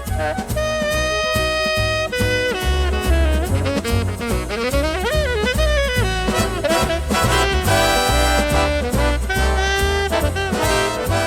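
Background music: an instrumental jazz-style tune with a horn lead over a pulsing bass.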